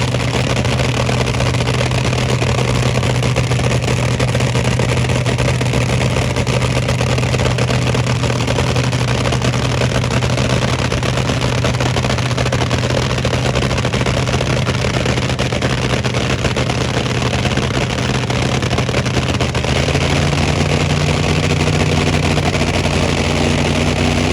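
A car engine idling loudly and steadily, its speed stepping up slightly about twenty seconds in.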